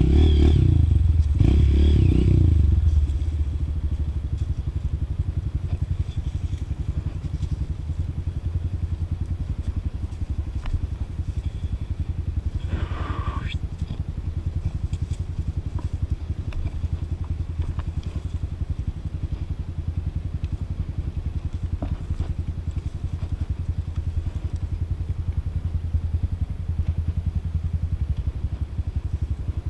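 Trail motorcycle engine running steadily at low revs, louder for the first three seconds or so as it is revved. A brief rising-and-falling sound comes about 13 seconds in.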